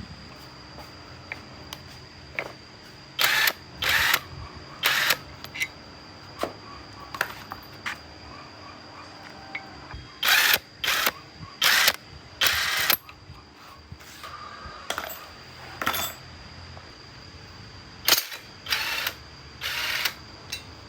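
About a dozen short hissing blasts, each about half a second, coming in clusters, over a faint steady hum.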